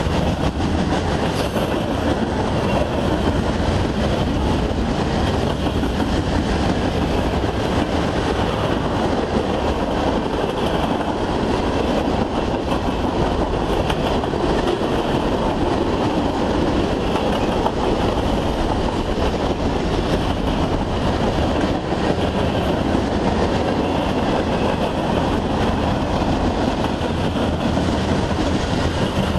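Freight train cars rolling past: steel wheels running on the rails make a steady, unbroken rolling noise.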